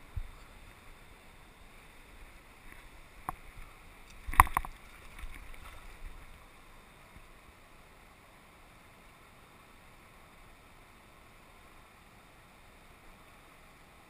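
Faint steady rush of a mountain river, with a sharp click about three seconds in and a brief loud thump a second later, followed by a few smaller handling noises before only the river remains.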